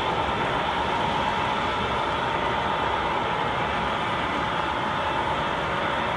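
O-scale model taconite ore cars rolling past on the layout track, a steady rolling noise of wheels on rail.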